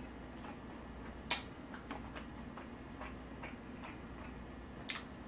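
Soft, irregular clicks of eating: a utensil tapping the dish and mouth clicks while chewing, with one louder click about a second in.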